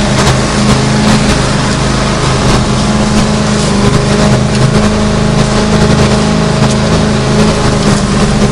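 Lawn mower engine running steadily while mowing grass: a constant drone with a broad hiss over it.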